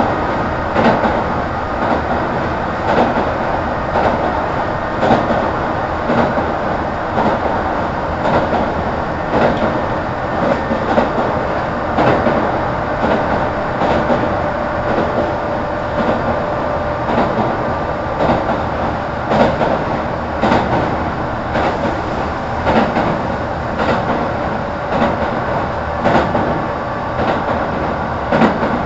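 Kintetsu 1810 series electric train running at speed, heard from inside the passenger car: a steady rumble of wheels and running gear, with wheels clicking over rail joints roughly once a second.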